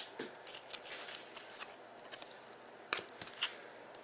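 Trading cards being handled and slid against one another: faint light rustles and soft clicks, with one sharper click about three seconds in.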